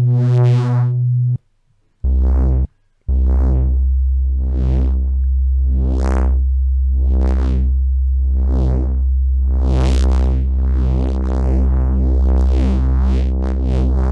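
Neuro drum and bass synth bass from a Phase Plant patch, a sawtooth oscillator over a sine sub, playing held notes while an LFO sweeps the filter open and shut in a rhythmic wobble. A higher note stops about a second and a half in, a short lower note follows, then a long low note holds with a steady deep sub as the filter sweeps come faster in the second half.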